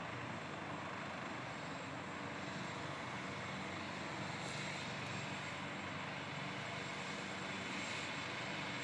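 Medical helicopter running on the ground before takeoff, its turbine and turning rotor making a steady roar with a constant high whine over it.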